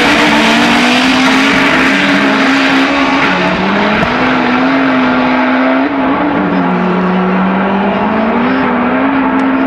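Turbocharged Honda Civic drag cars at full throttle down the quarter mile after the launch. The engine note climbs through each gear and drops back at each upshift, around 3 and 6.5 seconds in.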